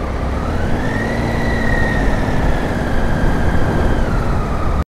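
Triumph Tiger 800's three-cylinder engine through an Arrow exhaust, heard under way. Its note rises about a second in, then holds and eases off slightly. The sound drops out briefly near the end.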